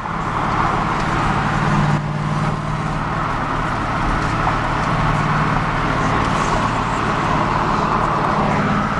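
Car engine running at a steady speed, a low even hum over a constant haze of engine and road noise.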